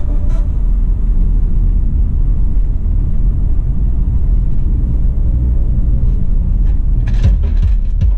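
Low, steady rumble of a car driving slowly, heard from inside the cabin, with a few short knocks near the end.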